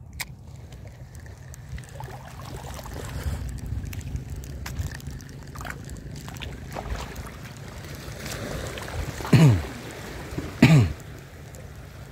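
Wind and lapping shallow water with the light clicks of a spinning reel being wound. Near the end, two short loud throat-clearing sounds, each sliding down in pitch, about a second and a half apart.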